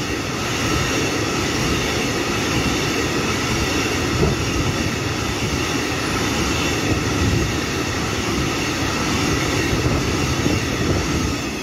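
Freight train of tank wagons rolling past at speed: a steady rumble of steel wheels on the rails, with a faint high whine above it, easing a little near the end.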